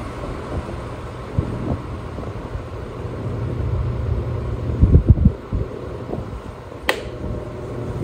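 Arno VR40 Ambience table fan running with its blades spinning: a steady low hum and rumble of the motor and moving air, with a few low thumps about five seconds in and a single sharp click near the end.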